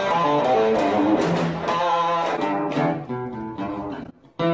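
Instrumental guitar music with changing notes. Near the end it breaks off briefly, then a single chord is struck and left to ring.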